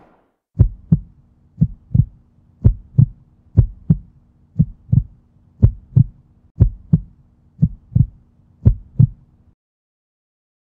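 Heartbeat sound effect: nine double thumps in a lub-dub pattern, about one a second, over a faint steady low hum. It stops near the end.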